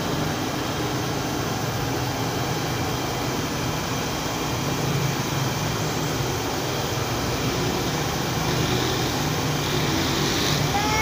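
Steady low roar and hum of a roadside food stall: a large gas burner running under a wok of heating oil, with street traffic behind.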